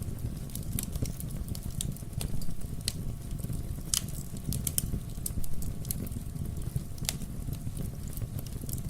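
Wood fire burning in a fireplace: a steady low rumble of flames under frequent sharp crackles and pops, with one louder pop about four seconds in.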